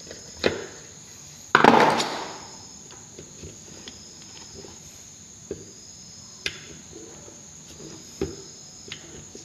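Sharp metallic clicks and knocks of hand tools as the nuts on a Suzuki WagonR integrated starter generator are tightened, with one louder, noisier burst about half a second long about a second and a half in.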